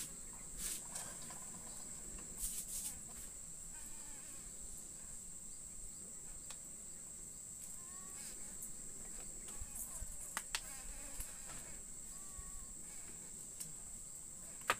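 Steady, high-pitched drone of insects such as crickets, with a few faint clicks and a sharper knock near the end.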